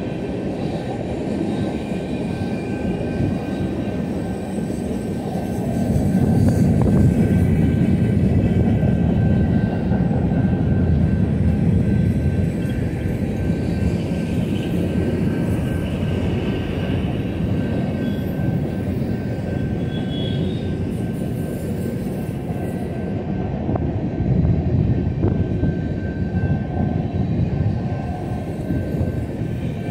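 Freight train rolling past close by: a steady rumble of cars and wheels on the rails, swelling louder from about six seconds in.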